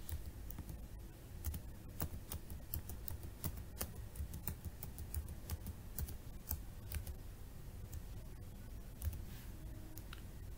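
Typing on a computer keyboard: irregular key clicks, sometimes in quick runs and sometimes spaced out, over a low steady hum.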